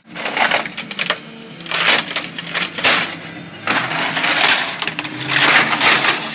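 Office printer being smashed apart: about five rounds of crunching, rattling crashes of breaking plastic and loose parts.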